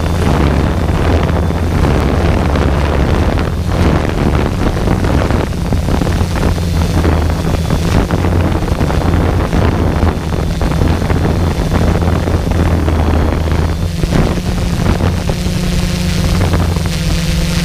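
Camera drone's propellers humming steadily, with wind buffeting the microphone. The hum shifts up in pitch near the end.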